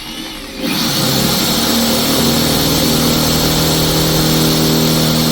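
Electric drill fitted with a concrete (masonry) bit, started about half a second in and running steadily at speed against wood. The masonry bit only spins and does not cut.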